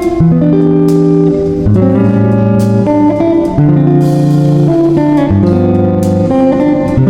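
Background music led by guitar, with a steady drum beat.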